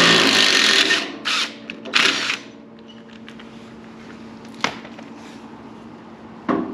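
Power tool running on the sawmill pulley's 5/8-head bolt: one longer run, then two short bursts, followed by a faint steady hum and a single click.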